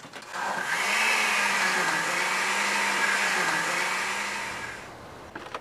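Countertop blender running steadily with its motor hum, then winding down near the end.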